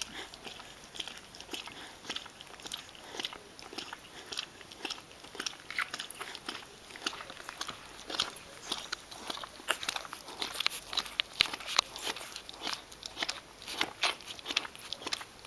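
Six-day-old Miniature Bull Terrier puppies suckling at their mother's teats: rapid, irregular wet clicks and smacks, several a second, growing busier and louder about halfway through.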